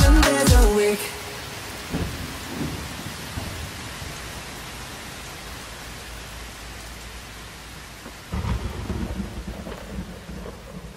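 Heavy rain falling steadily after the song's last notes fade about a second in; a low rumble of thunder rolls in about eight seconds in.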